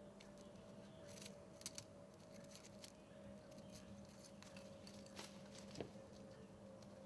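Near silence: a faint steady hum with a few soft, scattered clicks.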